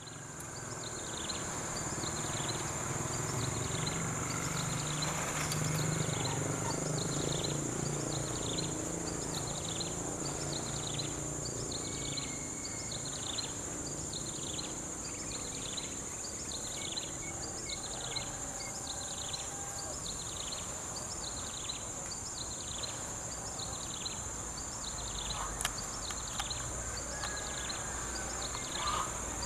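Diesel-electric locomotive running light and approaching slowly, its low engine rumble growing stronger near the end. Under it runs a steady high-pitched whine and a chirp that repeats about one and a half times a second.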